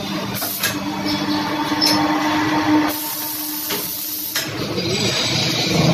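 Double-spindle CNC lathe running: a steady machine hum and whine that fades about halfway, with loud hissing stretches, the longest about three seconds in, and a few sharp clicks as the tool slide moves between the spindles.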